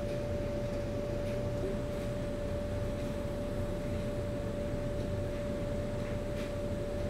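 A steady single-pitched hum, mid-high and unchanging, over a low background rumble, with a few faint ticks.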